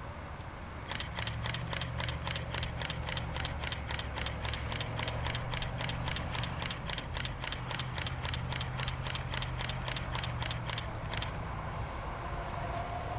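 Camera shutter firing in a continuous burst, about four clicks a second for some ten seconds before stopping suddenly, over a low steady vehicle hum.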